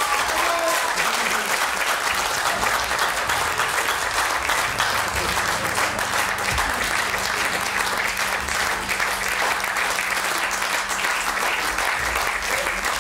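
Theatre audience applauding: dense, continuous clapping that holds steady throughout.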